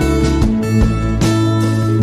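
Background music: a strummed acoustic guitar over a steady low bass, with a new strum about every three quarters of a second.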